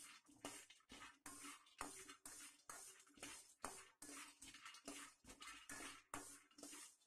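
Faint, repeated scraping strokes, about two a second, of a slotted steel spatula stirring almonds in a stainless steel pan, the nuts sliding and rattling against the metal as they dry-roast without oil.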